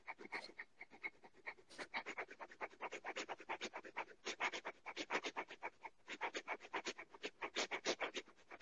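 A person breathing in quick, sharp, panting breaths, about five a second, with a brief pause about six seconds in. This is a rapid 'wolf' regeneration breathing exercise.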